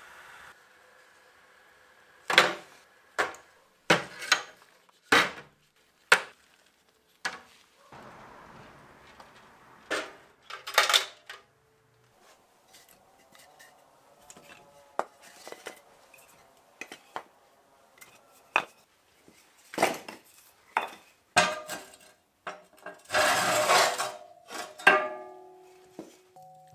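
Split firewood logs clunking against each other as they are pulled one at a time from a stacked woodpile: a string of sharp, separate knocks, with a longer clatter near the end.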